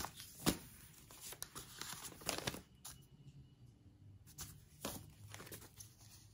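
Paper sewing-pattern envelopes rustling and crinkling as they are handled and swapped one for another, in several short scattered crackles.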